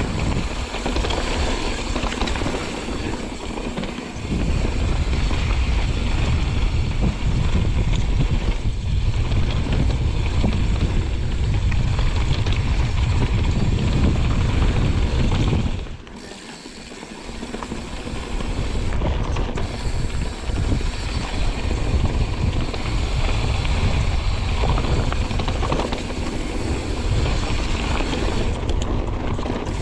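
Mountain bike descending a gravel trail: wind buffeting the microphone and tyres rumbling over the ground, with the rear hub's freewheel ratcheting as the rider coasts. The low rumble drops away briefly about sixteen seconds in.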